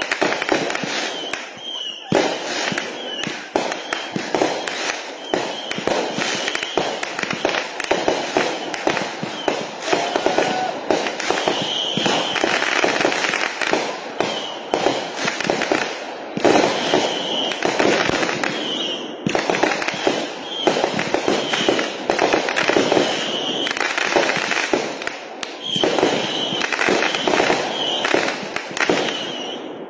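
Consumer-grade aerial repeater fireworks firing in a rapid, nearly continuous barrage of launches, bursts and crackling, with short high whistling tones now and then.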